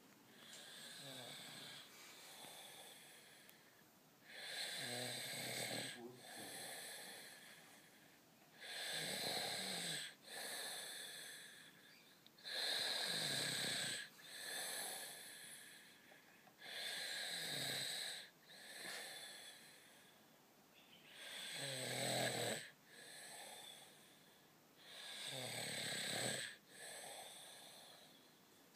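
A man snoring in his sleep. Each breath brings a longer, louder snore followed by a shorter, softer one, repeating about every four seconds. The snores are fainter in the first few seconds.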